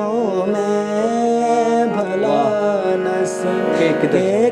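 A man singing a long, ornamented line of a Punjabi zabur (psalm) in raag Bhairavi, with the voice bending between notes, accompanied by a harmonium holding sustained notes.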